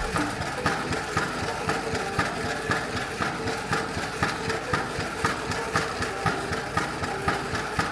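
Vacuum emulsifying mixer (AGI Homo Mixer) running: a steady mechanical hum with an even ticking of about four clicks a second.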